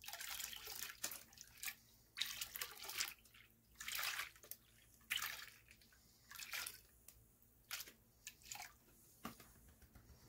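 Water sloshing and splashing as a plastic gold pan is swirled and dipped in a tub of muddy water, washing the lighter dirt out of the pan. It comes in irregular splashes, roughly one every second, with short quiet gaps.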